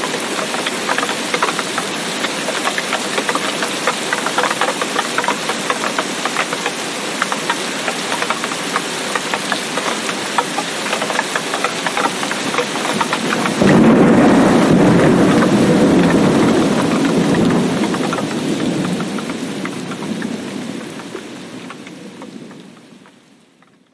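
Heavy tropical rain falling, with many individual drops pattering. About 14 seconds in, a loud rumble of thunder breaks in and slowly dies away, and then everything fades out near the end.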